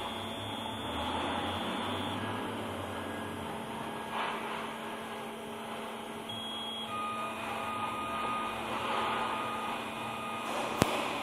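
Hot wire foam cutting machine running through a cut: a steady hum with thin whining tones from its drive motors that shift in pitch every few seconds. A single sharp click near the end.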